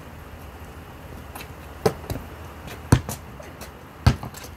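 Basketball bouncing on a hard court: three loud bounces about a second apart, with a few fainter taps between them.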